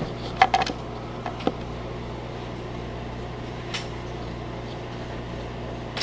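A steady low hum, with a few sharp knocks and clicks in the first two seconds and another near the middle.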